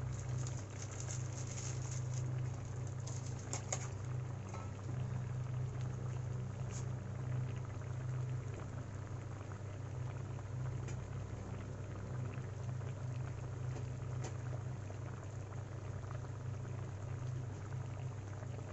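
Egg curry gravy bubbling and crackling as it simmers in a pan, over a steady low hum, with a few light ticks in the first few seconds.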